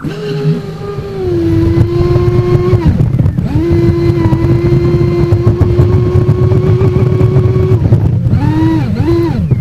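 Onboard sound of a UL-1 RC hydroplane running flat out on open water: the electric motor's steady whine over hull and water noise. It starts abruptly, eases off briefly about three seconds in, and near the end dips and rises twice as the throttle is let off and opened again.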